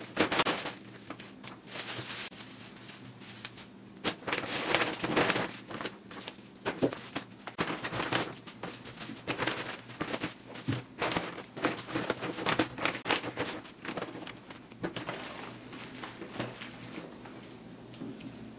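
Thin plastic produce bags crinkling and rustling in irregular bursts as groceries are lifted out of a reusable shopping bag and set down on a table.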